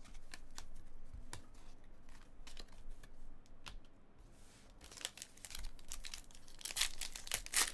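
Trading cards clicking as they are slid and flicked through by hand, then from about five seconds in a card pack's wrapper crinkling and tearing open.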